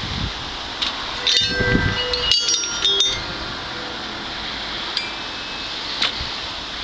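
Vintage Premier vibraphone's metal bars tapped lightly with yarn mallets: a brief cluster of short, chime-like clinking notes about one to three seconds in, over a steady background hiss with a few low handling thumps.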